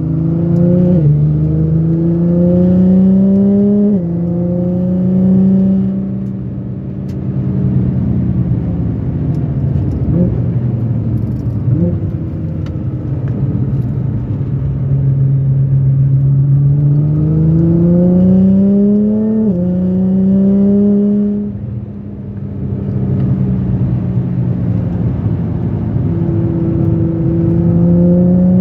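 Car engine heard from inside the cabin under hard track driving: the revs climb and drop sharply at upshifts about one and four seconds in, ease off and sag through a corner, then climb to another upshift about two-thirds of the way through and rise again near the end.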